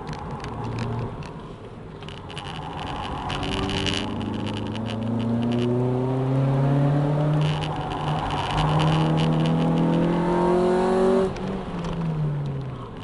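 Honda Civic EJ9 engine heard from inside the car at speed on track. It runs at lower revs at first, then the revs climb steadily from about four seconds in, dip briefly near seven and a half seconds, and climb again. Near the end they drop off sharply as the throttle is lifted.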